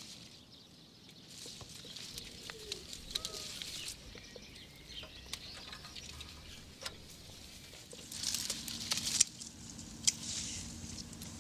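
Grape picking by hand: rustling of vine leaves and bunches with scattered sharp clicks and snips, busier in the last few seconds, and a few faint chirps about three seconds in.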